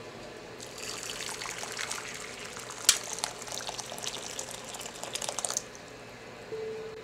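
Water poured into a glass bowl, filling it, for about five seconds. There is one sharp click about three seconds in.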